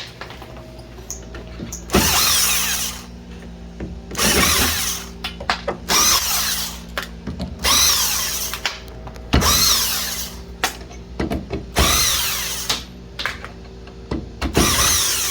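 Drywall screw gun driving screws into the ceiling in about seven short bursts of a second or so, one every two seconds or so, the pitch falling within each burst.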